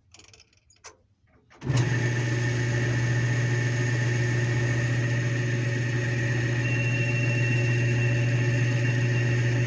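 A lathe's electric motor is switched on a little under two seconds in, after a few light knocks, and then runs with a steady low hum.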